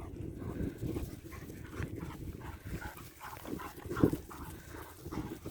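A dog vocalising, with irregular low sounds and one louder sound about four seconds in.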